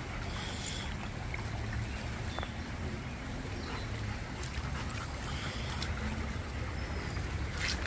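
Stream water running with a steady rush over a low, constant rumble.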